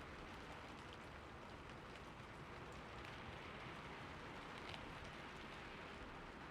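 Faint, steady rain falling, with scattered light drop ticks.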